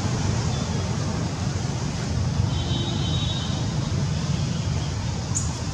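Steady low rumble with an even hiss of outdoor background noise, and a faint, brief high-pitched chirp about halfway through.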